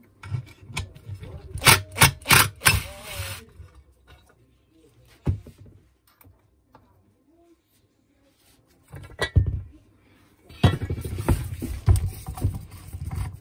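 Metal parts of a Zubr 230 mm angle grinder being taken off by hand: a quick run of sharp clicks and knocks in the first few seconds, a couple more knocks about nine seconds in, then rough rubbing and scraping near the end. The grinder itself is not running.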